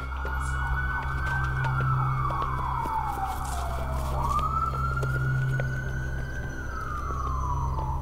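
Emergency vehicle siren on a slow wail, its pitch rising and falling twice, over a steady low hum.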